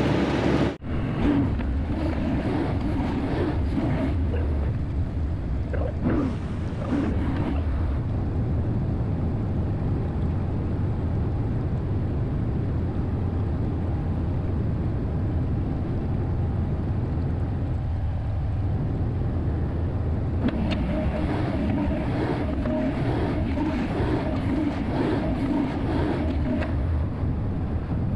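Volvo 140 excavator's diesel engine running steadily at a constant low rumble, with a brief break about a second in.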